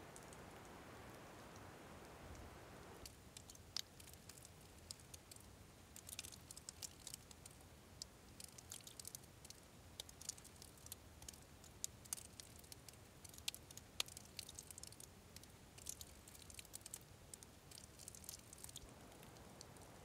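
Faint, irregular crackling clicks, sparse at first and thicker from about six seconds in. A soft hiss underneath stops suddenly about three seconds in.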